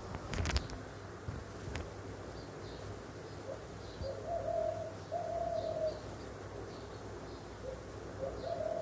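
Pigeon cooing: a few long, low, steady coos in the second half, with a few sharp clicks about half a second in and one more just under two seconds in.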